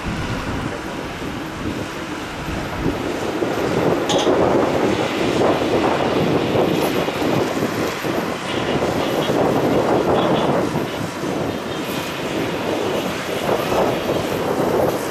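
Boeing 737-800's CFM56-7B turbofan engines rumbling as the airliner rolls along the runway, heard from the side of the airfield. The roar swells about four seconds in and stays strong.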